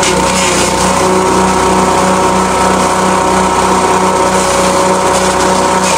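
Small single-cylinder engine running steadily at speed, driving a grass chopper's blades as moringa stalks are fed in and shredded.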